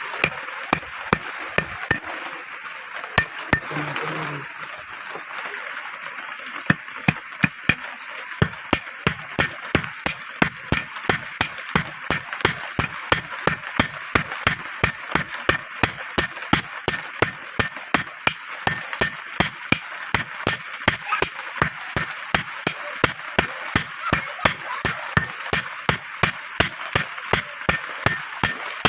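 Blacksmith's hand hammer striking iron on an anvil in a steady rhythm, about two to three sharp blows a second, while a sickle blade is forged from a rod. The hammering pauses briefly a few seconds in, then resumes and keeps going.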